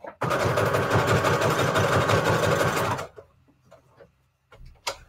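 Electric sewing machine stitching rapidly through paper for about three seconds, then stopping abruptly. A single sharp click follows near the end.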